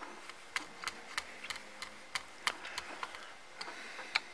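Small screwdriver tightening the screws of a laptop's copper CPU heat sink: a run of sharp, irregular metal clicks, two or three a second.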